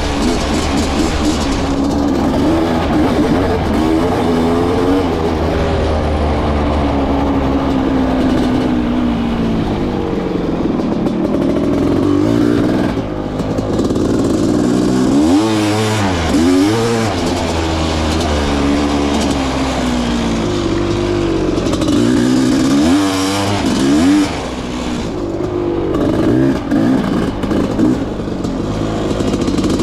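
Honda CR500's two-stroke single-cylinder engine revving up and down with constant throttle changes while being ridden, with several quick sharp blips around the middle and again later on.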